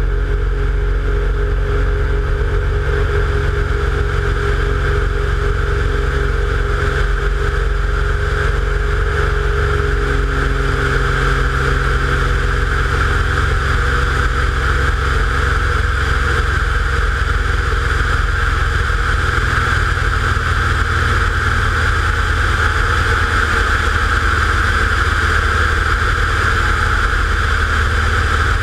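Piston engine and propeller of an American Champion Scout bush plane running steadily at power as it climbs away low over the beach, with a rushing air noise that grows stronger about ten seconds in.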